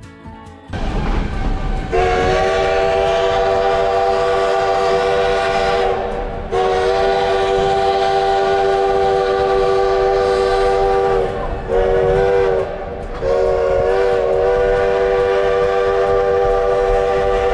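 Steam locomotive's chime whistle blowing three long blasts, several notes sounding together, its pitch sagging briefly in the gaps between blasts, over the train's steady rumble.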